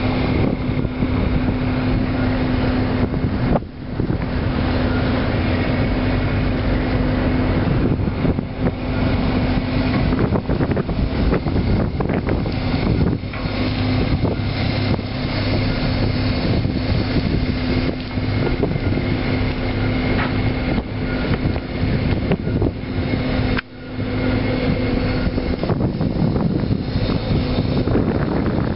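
Fishing boat's engine running with a steady, constant hum under a rushing noise of wind and water. The sound drops out briefly twice, about four seconds in and again about twenty-four seconds in.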